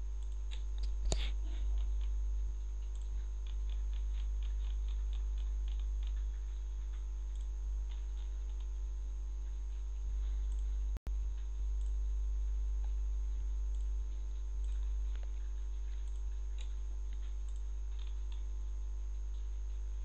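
Steady low electrical hum, with faint computer-mouse clicks scattered over it. There is a cluster of quick clicks about a second in and a run of light ticks a few seconds in. The sound cuts out completely for a moment about halfway.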